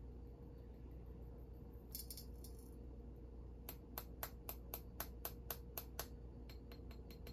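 Gold from a small container being tipped and tapped out onto a scale: a brief rattle, then about ten light, sharp taps at roughly four a second, with a few fainter taps near the end.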